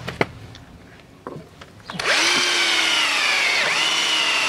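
Electric drill driving a self-drilling screw through a galvanized steel gate gear rack: a sharp click just after the start, then from about two seconds in the drill whines steadily, its pitch sagging briefly once as the screw bites into the steel.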